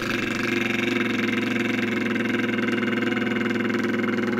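A man's lip trill as a vocal warm-up exercise: the lips fluttering over a hummed voice held on one steady low pitch, with a motor-like buzz.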